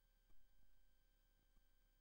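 Near silence: a faint steady hum, with one brief soft knock about a third of a second in.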